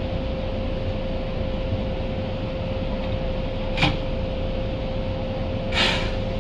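Kobe Electric Railway 1000 series electric train standing at the platform, its on-board equipment giving a steady hum with a constant mid-pitched tone. A sharp click comes about four seconds in and a short hiss near the end.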